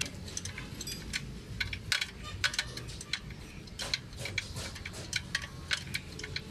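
Irregular metallic clinks and taps of hand tools and loose parts working on a Bedford truck's front brake backing plate and wheel spindle.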